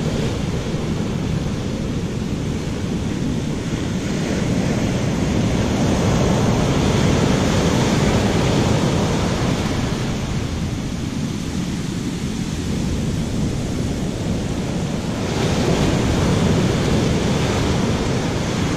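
Heavy ocean surf breaking and washing up the beach. It swells louder twice as bigger waves break, about six seconds in and again about fifteen seconds in.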